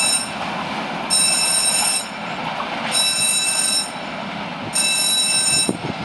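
A freight train of empty flat wagons runs on as it moves away, with a steady rolling rumble. Over it, a high-pitched ringing tone comes on for about a second and stops again, three times, about every two seconds.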